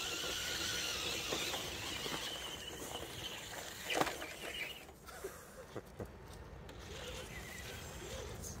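Faint rustling and crackling of RC rock crawlers' tyres rolling over leaf litter and grass, with a thin high whine in the first few seconds and a few sharper crackles around the middle.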